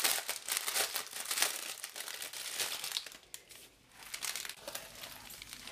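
Plastic crinkling and rustling as a diamond painting canvas covered in clear plastic film is handled and flipped over, with a brief quieter pause a little past the middle.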